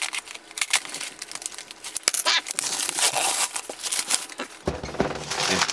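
Kraft paper being torn and crumpled by hand as a parcel is unwrapped: a quick, irregular run of rustles and sharp rips. Near the end the rustling becomes heavier and fuller.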